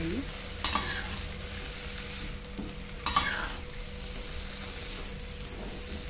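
Water spinach and basil leaves stir-frying in oil in a pan: a steady sizzle, with a metal spatula scraping the pan twice, about a second in and about three seconds in.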